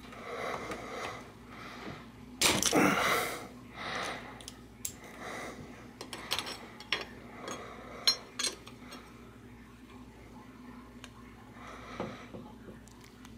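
Steel spanners clicking and clinking against a bicycle bottom bracket's lock ring and adjustable cup as the lock ring is tightened, with a scatter of light metallic clicks. A loud breath about two and a half seconds in.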